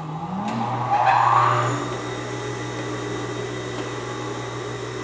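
Industrial sewing machine motor spinning up, rising in pitch over the first half second, then running with a steady hum that swells briefly about a second in.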